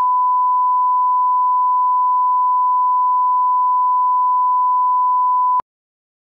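A 1 kHz line-up reference tone, the test tone that runs with colour bars at the head of a tape for setting audio levels. It is a single steady pure beep that cuts off suddenly near the end.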